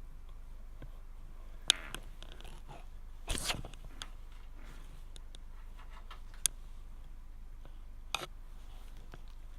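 Computer parts and packaging being handled: a few sharp small clicks and a short rustle about three seconds in, over a steady low hum.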